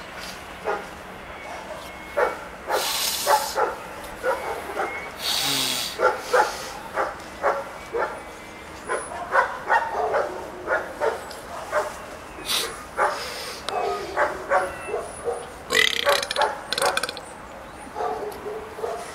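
A dog barking over and over, about two barks a second, from about two seconds in to near the end, with a few short bursts of hiss among the barks.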